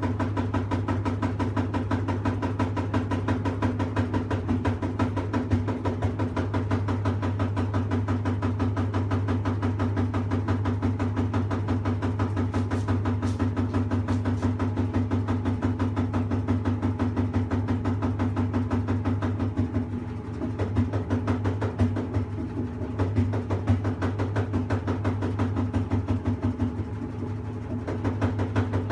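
Washing machine making an abnormal noise: a fast, even knocking rattle over a steady low hum. It eases off slightly about two-thirds of the way through.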